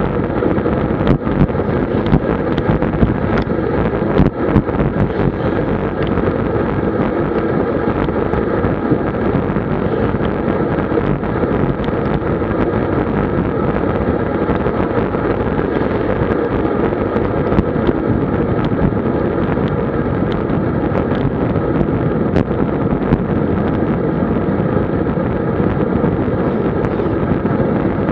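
Steady wind rushing over a bike-mounted Garmin VIRB action camera's microphone, with tyre and road noise from a road bike descending at about 50 km/h. A few sharp knocks come in the first five seconds.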